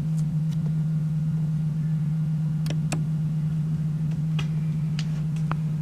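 Vinyl LP's lead-in groove playing on a turntable: a steady low hum with scattered clicks and pops from the record surface.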